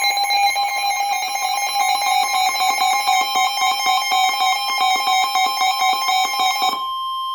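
Emergency Alert System attention signal: a loud, steady two-tone alarm, with one of the tones holding on alone near the end. It heralds a tornado warning.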